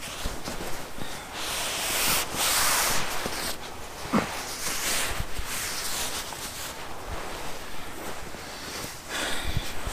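Nylon hammock and sleeping-bag fabric rustling in swells as a person shifts and settles inside the hammock, with a brief squeak about four seconds in.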